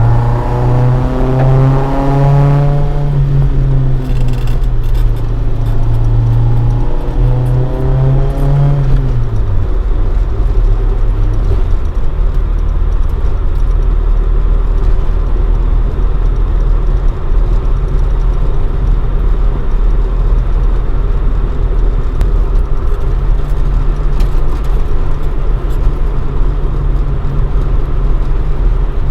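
Toyota AE86 Sprinter Trueno with a swapped AE111 20-valve 4A-GE engine on four individual throttles and a Fujitsubo Legalis R exhaust, driving: the engine note falls in pitch in the first few seconds and again about eight seconds in as the revs drop, then settles into a steady low drone.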